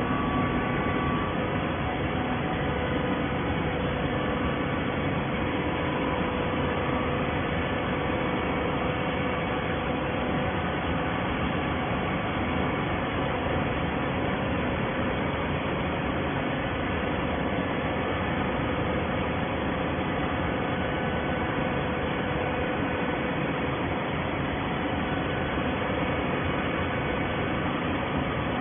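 Plastic-bottle baling machinery running: a steady mechanical hum and hiss with faint constant tones, unchanging throughout.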